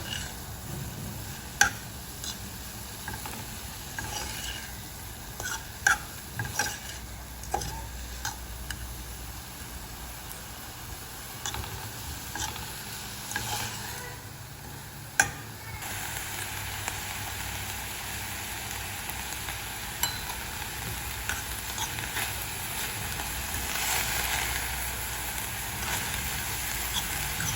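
Ground beef sizzling as it fries in a pan while being stirred, with a few sharp knocks of the utensil against the pan. The sizzle grows louder about halfway through.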